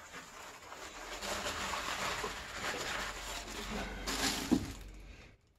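Disposable pee pad being folded and crumpled by hand, then pushed into a plastic-bag-lined wastebasket: continuous rustling and crinkling, with a louder rustle about four and a half seconds in. It stops abruptly near the end.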